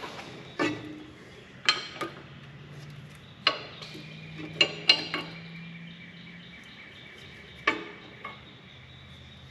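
Metal clinks and clanks from working on brake parts: about eight sharp knocks at irregular intervals, several with a brief metallic ring.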